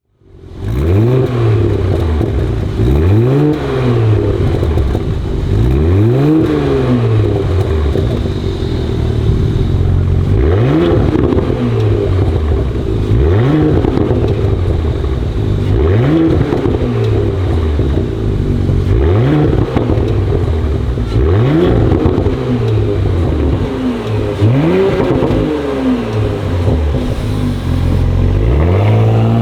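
Porsche Cayenne 3.0-litre turbocharged V6 through a TNEER aftermarket catback exhaust, revved in about a dozen quick blips. The pitch climbs sharply and drops back each time, every two to three seconds, between a steady idle.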